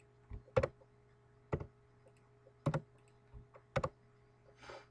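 Separate keystrokes on a computer keyboard: about five sharp clicks, roughly a second apart, while a spreadsheet formula is typed and entered.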